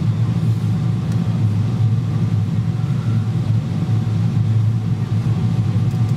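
Steady cabin rumble inside a Boeing 777-200ER airliner on approach: engine and airflow noise heard from a window seat beside the wing.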